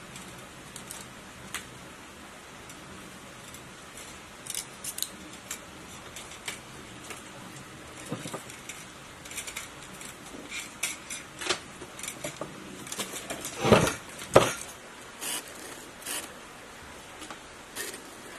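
Small clicks, clinks and rustles of stator lead wires and small tools being handled inside a three-phase pump motor housing during rewinding, with two louder knocks about three-quarters of the way through.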